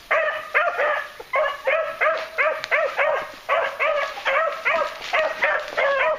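Beagle hounds baying on a trail: short, arching, repeated barks, about three a second, sometimes overlapping as more than one hound gives tongue.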